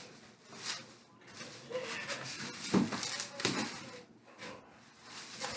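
Rustling and handling noises from packaging and furniture parts being moved about, with a thump about three seconds in.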